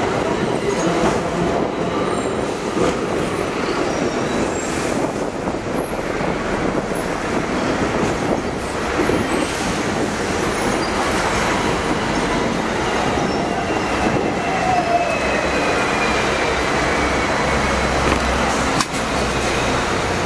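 Hong Kong double-decker tram running along street track, heard from inside the upper deck: a steady rumble and rattle of the car and its wheels on the rails. A faint falling whine comes in about two-thirds of the way through, and a single sharp knock sounds near the end.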